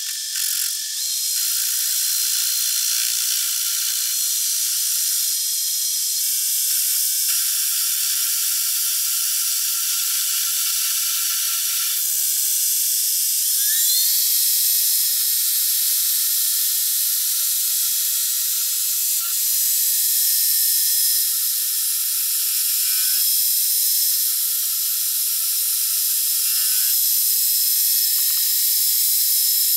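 Metal lathe turning down the outside of a cast aluminium billet, the cutting tool shearing off chips with a steady high hiss and whine. The whining tones step up in pitch about halfway through.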